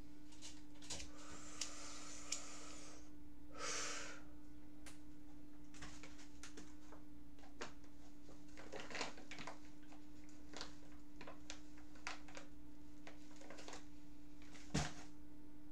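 A man's breathing and sniffing, with a long breathy exhale and a short sniff in the first few seconds, then scattered small clicks and taps from handling things. A sharper click near the end is the loudest sound. A steady low electrical hum runs underneath.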